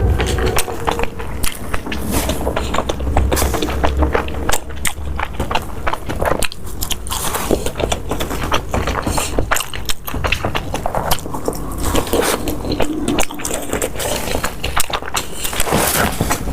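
Close-up eating sounds: a person biting and chewing soft, chewy food with many wet smacks and small clicks throughout.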